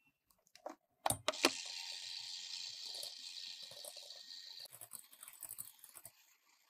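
Electric hand mixer starting with a few sharp clicks about a second in, then running steadily as its beaters cream cubed butter in a glass bowl, stopping shortly before the end.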